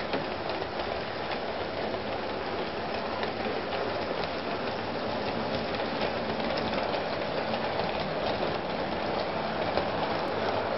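Model railway train running along sectional track: a steady rattle of small wheels and motor, with light clicks as the wheels cross the rail joints.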